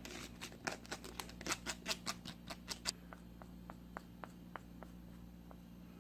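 Close-miked mouth sounds of someone eating noodles: a quick run of wet clicks and smacks, about five a second, that thins out after about three seconds into scattered soft clicks as the chewing slows.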